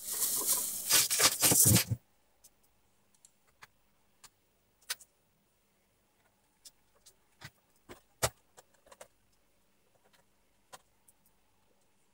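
A loud rustling handling noise for about two seconds, then scattered light clicks and taps of a screwdriver, screws and plastic parts as an LCD TV's power board is screwed back in and its plastic back cover is fitted.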